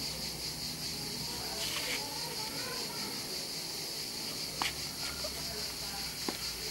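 Steady, high-pitched chorus of insects buzzing in the background, with a couple of faint clicks about four and a half and six seconds in.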